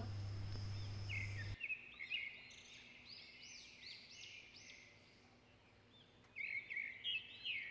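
A steady hum that cuts off suddenly about a second and a half in, then small birds chirping over and over, with a louder run of chirps near the end.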